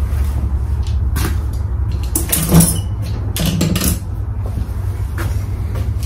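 Knocks, bumps and clatter from a person getting up and moving about, with two short creaking scrapes about two and a half and three and a half seconds in, the first being the loudest moment. A steady low hum runs underneath.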